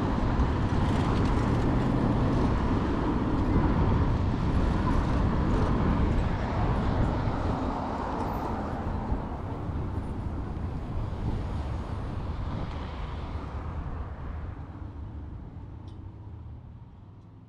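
Street traffic ambience, a steady noisy rumble of passing vehicles, fading out over the last several seconds.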